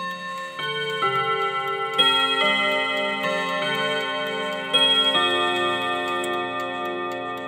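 Odo pendulum clock's hammers striking its chime rods in a slow chime tune. Each note rings on under the next, with the clock's ticking faintly beneath.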